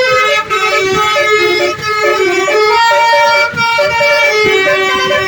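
Indonesian 'telolet' bus horn playing a tune: several pitched tones sounding together, stepping from note to note in quick succession without a break.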